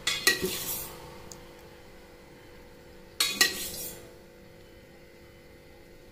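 Steel kitchen utensils clinking and clattering in two short bursts about three seconds apart, each with a brief metallic ring.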